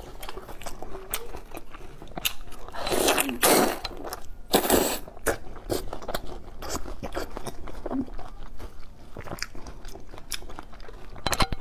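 Biting and chewing juicy ripe star fruit (carambola): wet crunching, with the loudest bites about three and five seconds in.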